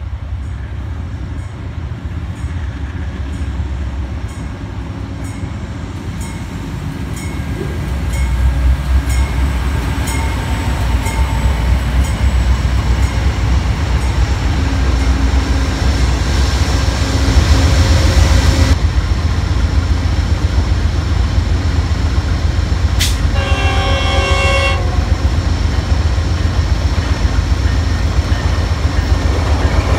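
Amtrak P42DC diesel locomotives pass close by with a loud low engine rumble that swells as they draw level, while a bell rings steadily, about every two-thirds of a second, at first. Later a locomotive horn sounds one chord-like blast of about two seconds.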